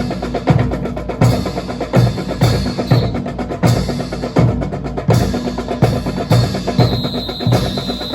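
Marching drum cadence: a bass drum beating steadily about twice a second, with snare and sharp rim or wood-block clicks between the beats.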